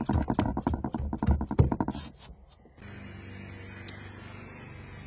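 Hands quickly rubbing and patting a glued Hydro-Turf foam grip pad down onto a jet-ski hull, a rapid run of short strokes for about two seconds. After that comes a steady low hum.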